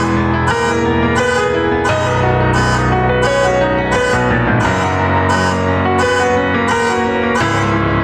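Solo piano on a digital keyboard: a repeated high chord pulsing just under twice a second over held low bass notes and a moving melody.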